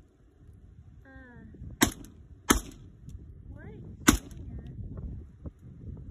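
Three single shots from an AK-pattern rifle, fired one at a time. The first two come close together, and the third follows about a second and a half later.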